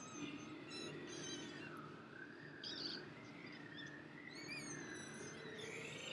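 Faint, wavering whistle-like tone that slides slowly down and back up, with a few brief high chirps.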